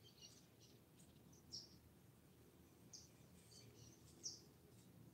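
Cockatiel making faint, short high chirps, scattered irregularly, the two loudest about one and a half and four seconds in.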